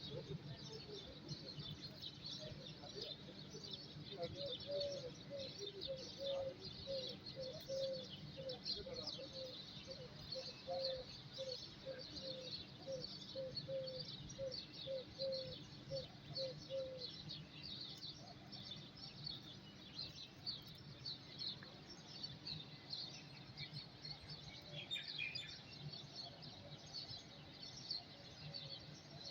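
Birds chirping continuously in a dense chorus of short high chirps. For about twelve seconds in the first half, a bird repeats a low, even call, one to two notes a second, over a faint steady hum.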